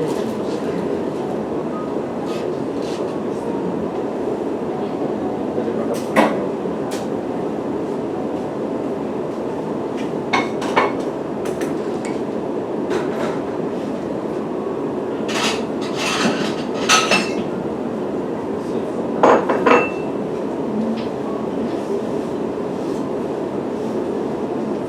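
Steady rumble of a moving train heard from inside the carriage. Scattered sharp clicks and knocks sit on top of it, a few at a time.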